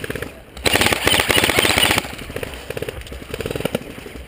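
Airsoft electric rifle firing a full-auto burst of about a second and a half, a rapid even clatter of shots. Quieter short bursts of rapid fire follow.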